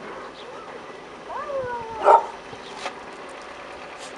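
A dog whining with a rising then falling pitch, then giving one short, loud bark about two seconds in.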